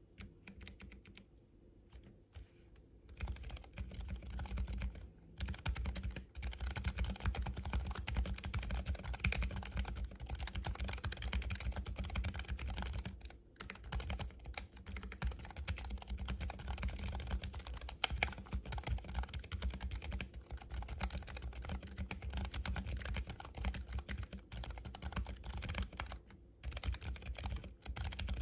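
Fast typing on a Keychron K7 low-profile keyboard with Banana keyswitches, key clicks coming in dense runs. The first few seconds hold only scattered single key presses, and a few brief pauses break the typing later.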